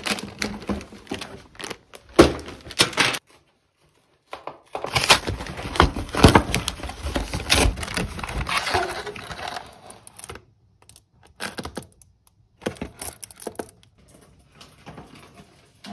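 Packaging being handled: a plastic sweets bag crinkles. After a brief pause comes a longer spell of cardboard flaps rustling and scraping as a box holding a wicker hamper is opened. A few short bursts of cardboard handling follow near the end.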